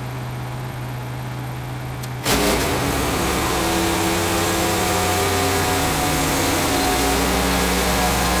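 Woodland Mills HM130 sawmill's gasoline engine idling, then about two seconds in throttled sharply up to full speed with the band blade running, and staying loud and steady.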